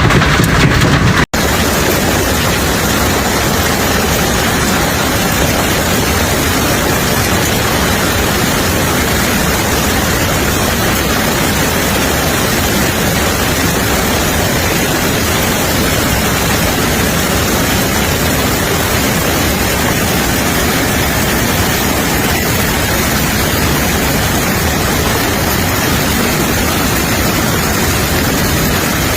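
Steady, loud, unbroken roar of a severe storm, with heavy rain and wind hissing evenly. It breaks off for an instant about a second in, then runs on unchanged.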